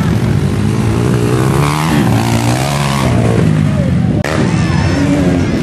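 Several motocross bike engines running and revving together, their pitches rising and falling over one another.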